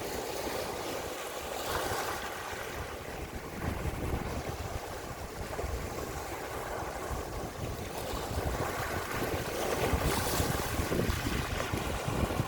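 Sea waves washing in with wind gusting across the microphone, a steady rushing hiss that swells twice, about two seconds in and near the end, over a low buffeting rumble.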